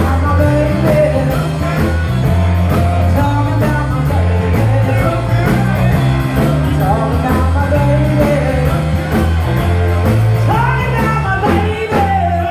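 Live rock band with a woman singing lead over electric guitars, bass and drums, at a steady driving beat.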